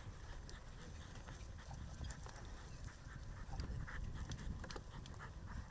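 Hunting dogs moving about close by: faint, scattered footfalls and small ticks over a low rumble.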